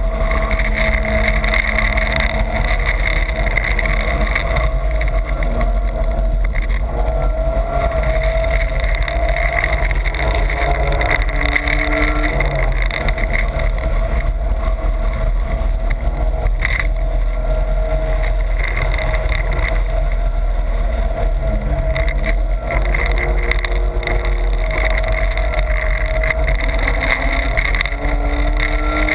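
BMW's engine running hard at track speed, heard from inside the cabin, its pitch rising and falling with the throttle.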